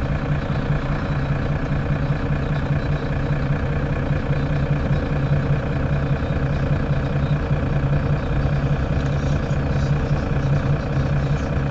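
Mercedes-Benz Citaro city bus engine idling steadily with the bus at a standstill.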